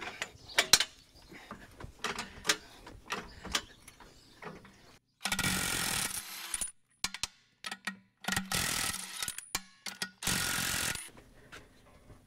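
A jack being pumped under the tractor, giving a run of short clicks and knocks. Then a cordless DeWalt 20V XR brushless wrench spins the rear wheel's lug nuts off in three loud runs of about a second each, with pauses between them.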